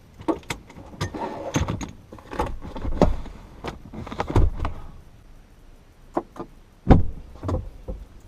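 Irregular knocks, clicks and thumps of objects being handled, with a heavy thump about seven seconds in.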